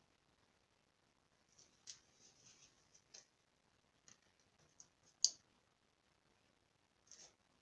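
Faint clicks and light scratchy taps of a paintbrush and painting gear being handled, with a few soft scrapes and clicks in the first half and one sharp click about five seconds in.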